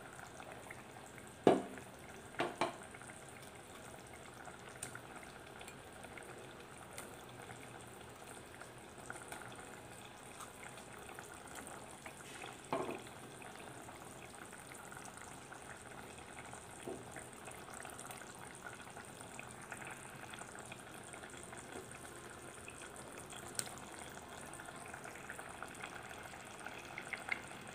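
Curry gravy bubbling at a boil in a pot, a steady soft hiss and sputter. A couple of sharp knocks come about a second and a half in, and another near the middle.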